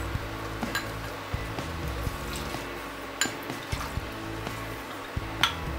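Coconut milk poured from a bowl into a pressure cooker of soaked basmati rice, with three sharp clicks of the bowl against the cooker's rim, over soft background music.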